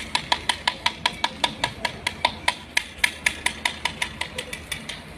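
A small metal bowl struck over and over in a rain-warding ritual, about five strikes a second, each a short bright ringing note at the same pitch. The strikes grow softer and stop shortly before the end.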